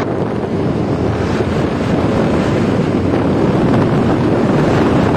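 Wind rushing in at the open window of a moving car, buffeting the microphone with a loud, steady rush that gets a little louder about two seconds in.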